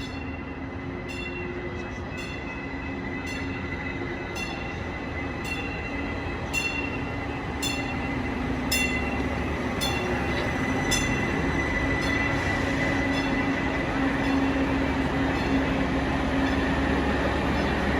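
Train running by, growing steadily louder, with a steady high whine over the rumble and a sharp click about once a second.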